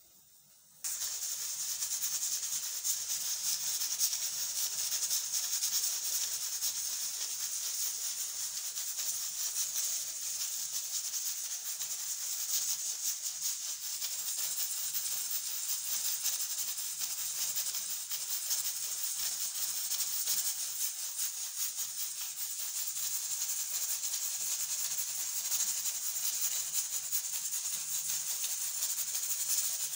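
Steam hissing steadily out of a stovetop pressure cooker's vent, with the weight on the vent pipe rattling fast, the sign that the cooker is up to pressure. It starts abruptly about a second in.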